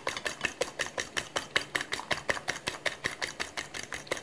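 A metal fork beating eggs in a ceramic bowl, clinking against the bowl's side in quick, even strokes, about seven a second.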